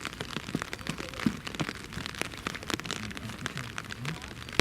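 Dense, irregular crackling and rustling close by, the sound of dry leaf litter and twigs being trodden and handled. Faint voices come in near the end.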